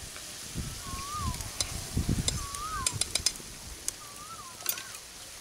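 A spoon stirring food in a frying pan, with a few sharp clicks and knocks against the pan in the middle. A bird repeats a short rising-then-falling whistle about every second and a half.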